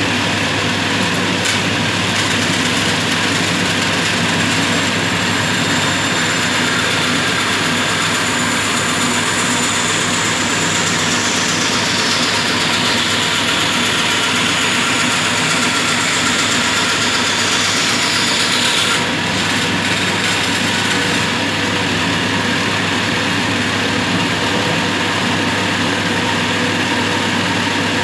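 Homemade bandsaw running steadily, its motor humming while the blade cuts through a wooden board. A high whine slowly falls in pitch in the middle and cuts off about two-thirds of the way through.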